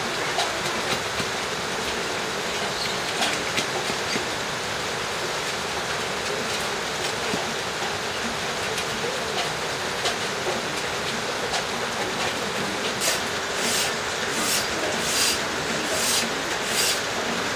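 Knife blade scraping and shaving a wooden bow stave in repeated strokes over a steady hiss, with scattered small clicks, and near the end a run of sharper rasping strokes about every half second.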